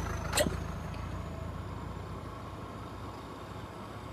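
Motor vehicle engine running, its low rumble fading away, with one sharp click about half a second in.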